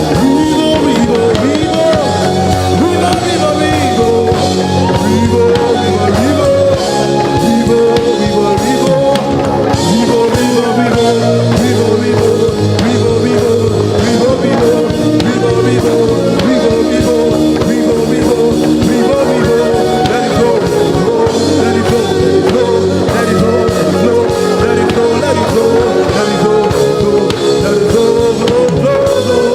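Live worship band music, loud and steady, with drums and guitar under singing voices.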